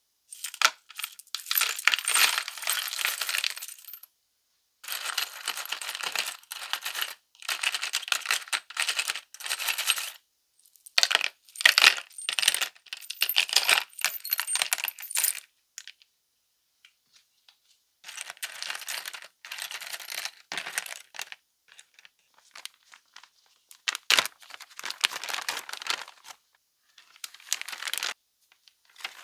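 Small steel bolts, washers and springs clinking and clattering against each other as handfuls are poured and handled, in repeated bursts of a few seconds separated by short pauses.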